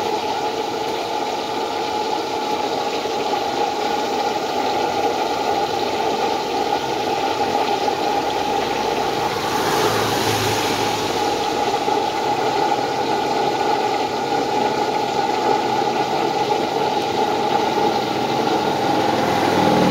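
Homemade blowerless used-oil and water drip stove burning hard: a steady roar from the flame in the firebox. It turns louder and hissier for a couple of seconds about halfway through.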